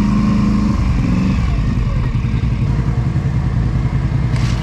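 ATV engine running steadily with a low, even pulse; a higher engine note drops away about a second in. A short clatter comes near the end.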